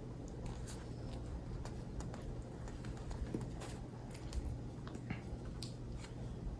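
Faint handling noises: scattered light clicks and soft rustles over a steady low hum.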